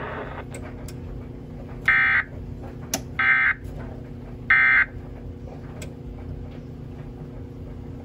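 TFT EAS 940A Emergency Alert System encoder sending its End of Message code: three short bursts of digital data tones, about 1.3 seconds apart, which close the alert. A steady low hum runs underneath.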